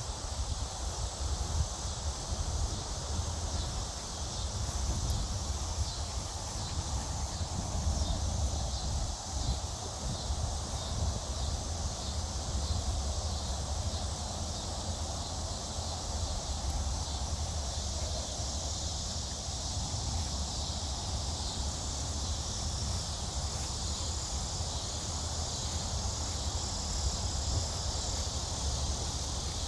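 Steady outdoor ambience: an even, high insect drone over a low wind rumble on the microphone.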